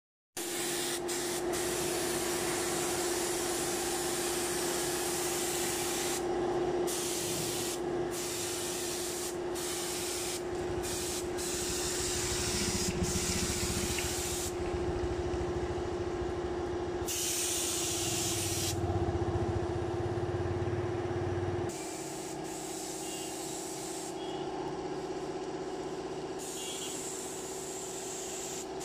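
Air-fed paint spray gun hissing as it sprays enamel paint, over a steady hum. The hiss breaks off for moments several times as the spraying pauses.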